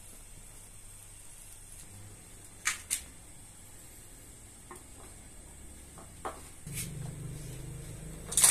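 Light knocks and clicks from handling, then a clatter of metal knocks near the end at a small metal bread oven with its door open. A low rumble comes in about two-thirds of the way through.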